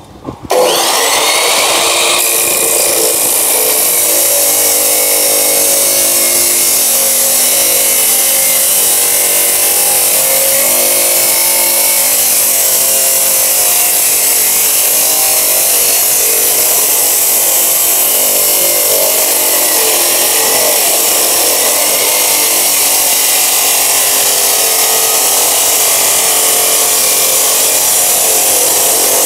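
Hukan abrasive chop saw starting up, its motor rising in pitch for the first second or two, then the cut-off disc grinding steadily through a rectangular steel tube.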